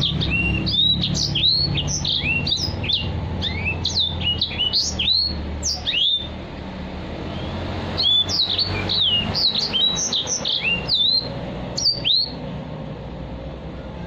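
Caged edel sanger singing a fast, busy song of sharp, sweeping whistled notes, in two long runs with a short break in the middle and stopping about twelve seconds in. A steady low hum runs underneath.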